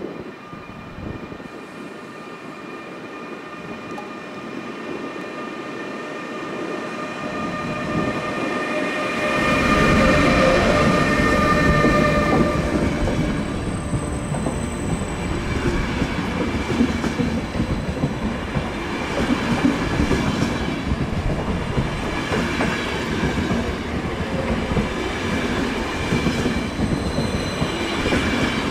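EuroCity passenger train rolling along the station track, growing louder over the first ten seconds or so, with a steady high whine over the first twelve seconds. After that the wheels rumble steadily, with clickety-clack over the rails.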